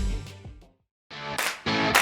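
Rock background music with electric guitar fades out. A brief gap of silence follows about two-thirds of a second in, and then the guitar music starts again with strummed chords.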